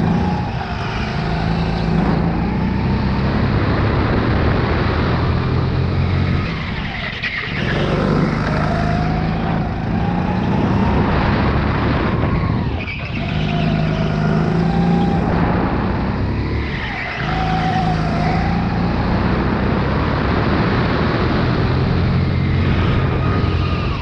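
Sodi RX8 rental go-kart's four-stroke single-cylinder engine running at speed from on board. It runs steadily near full throttle, with the revs dropping briefly three times and climbing again as the kart slows for corners.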